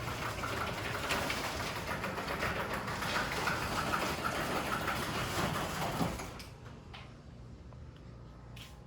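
Sectional garage door travelling on its tracks under a powered opener, rattling and rumbling with a thin screech, then coming to a stop with a small knock about six seconds in. The noise comes from the door itself, not the opener: it persists after lubrication, and the owner wants new rollers for it.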